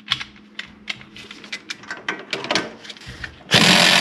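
Ratchet wrench clicking in quick, uneven strokes as the stripped sway bar link nut is worked loose, then a loud power tool starts running about three and a half seconds in.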